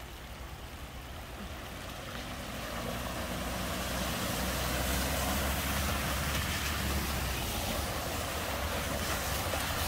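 Cars driving slowly through a flooded ford: a steady wash and splash of water pushed aside by the tyres over a low engine hum. It grows louder over the first few seconds as the cars come closer, then holds.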